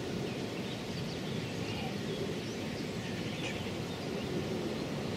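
Steady outdoor background noise, with a few faint bird chirps.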